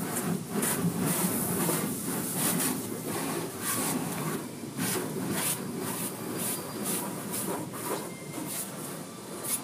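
Automatic car wash spraying water against the car in surging, hissing bursts, heard from inside the car's cabin, over a steady low rumble of the wash machinery.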